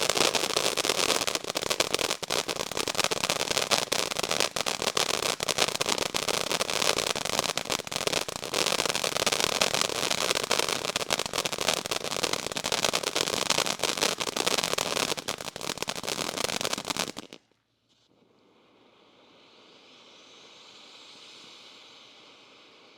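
Pyro Man ground fountain firework (Bright Star Fireworks) burning: a dense hissing spray full of rapid crackling pops. It stops suddenly about 17 seconds in, leaving only a faint hiss.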